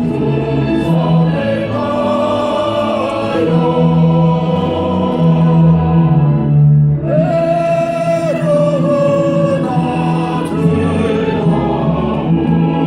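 Choral singing with instrumental accompaniment: a slow melody with long held notes over a steady low accompaniment.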